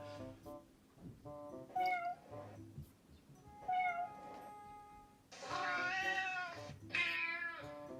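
Cat meows played from an iPad cat-sound app, over background music with a repeating melody. There is a short meow about two seconds in and another near four seconds. Then come two longer, louder meows one after the other from about five and a half seconds.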